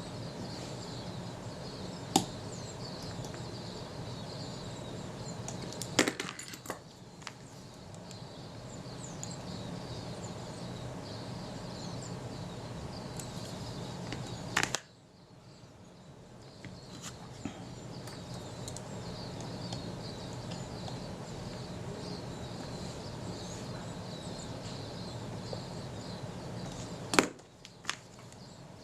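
Four sharp, isolated clicks and taps of small tools and camera parts being handled during a fine rangefinder adjustment, over a steady background hiss with faint chirping.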